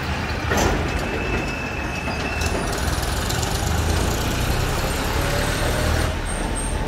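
Road traffic: motor vehicle engines running and idling with a steady low rumble, heavy vehicles among them. A thin horn tone sounds faintly for about two seconds near the start.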